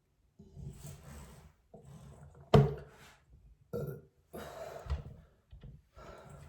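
A person burping over and over after chugging water, with one much louder burp about two and a half seconds in.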